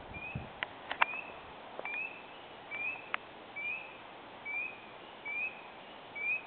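A frog calling from the pond in a steady series of short, slightly rising notes, about one a second, over a steady hiss. A few sharp clicks sound in the first few seconds, the loudest about a second in.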